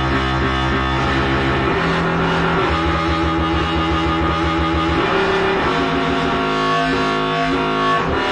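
Eurorack modular synthesizer patch playing sustained, rich synth notes under modulation from an Acid Rain Technology Maestro as its pads are pressed. The notes step to new pitches a few times, with a bass note changing about two seconds in and again about five seconds in.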